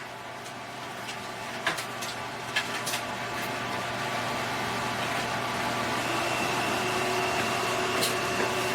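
Steady mechanical hum with several held tones, with a few light clicks about two to three seconds in and a thin high tone joining about six seconds in.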